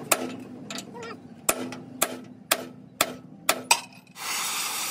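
Hammer blows on a steel truck chassis rail, about two a second, each with a short metallic ring. A little past four seconds in they stop and a steady hiss of an oxy-fuel gas torch flame takes over.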